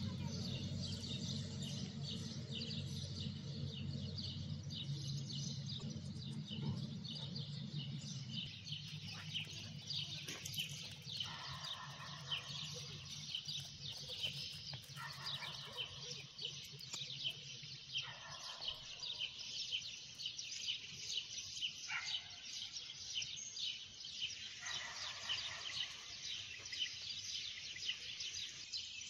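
Small birds chirping and twittering in a dense, continuous chorus. A low steady hum under it fades out a little past halfway.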